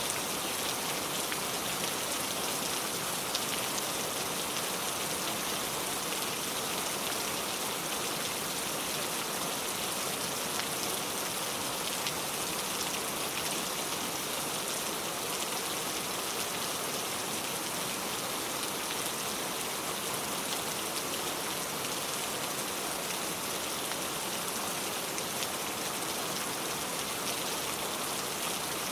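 Steady rain falling, a dense even hiss of drops striking surfaces.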